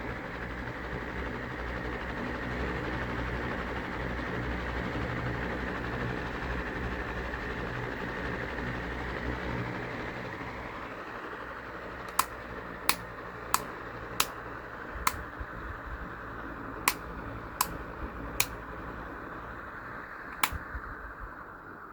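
A small electric fan running with a steady whir over a low motor hum, which weakens through the second half and drops in pitch near the end as it slows. From about halfway there is a series of nine sharp ticks at irregular spacing.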